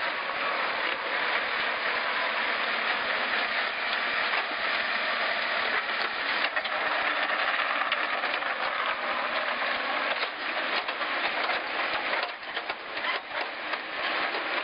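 Backhoe loader's diesel engine running steadily.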